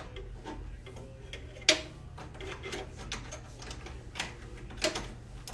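Scattered clicks and knocks of hands and tools working on a vending machine's panels and parts, with one sharp knock about a second and a half in and another near the end, over a steady low hum.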